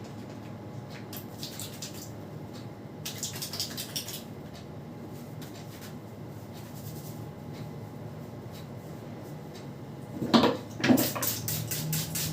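Head massage: hands rubbing and working through hair and scalp over a steady low hum. About ten seconds in come two louder hits, then a fast run of even tapping strikes, about five a second.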